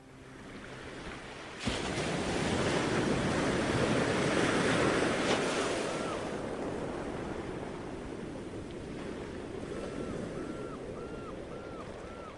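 Rushing wind and water along a rocky river shore, starting with a sudden thump about two seconds in. Near the end comes a run of short, repeated chirping notes, about two or three a second.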